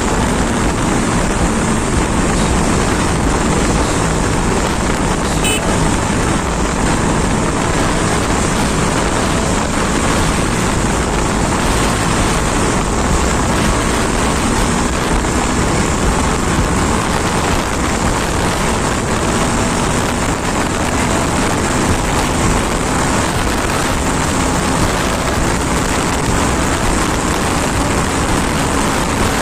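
KTM Duke 390 single-cylinder motorcycle ridden at a steady speed: a loud, even rush of wind over the helmet microphone with the engine running beneath it.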